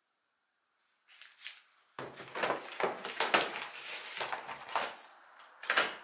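Handling sounds: crumpled newspaper rustling and crinkling as a glazed ceramic bowl is set down on it, and a clear plastic tool box being opened with small clicks and clatters of the tools inside. They start about a second in and come in irregular bursts, with a sharp clack just before the end.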